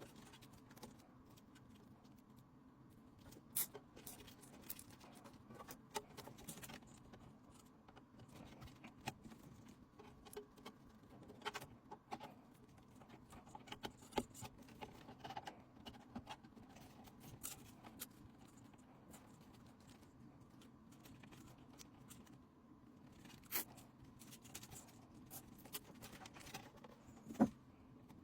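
Faint, scattered light clicks and taps of small hard objects being handled, over a low steady hum, with one sharper knock near the end.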